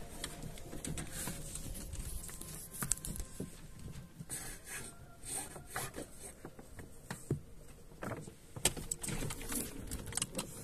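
Wind buffeting the microphone and water moving along the hull of a sailing yacht underway, with scattered clicks and knocks from the deck and rigging.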